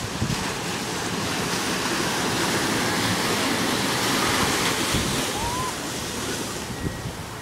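Surf breaking on a rocky shore, a rushing wash of water that swells to its loudest about four to five seconds in as a wave crashes, with wind on the microphone.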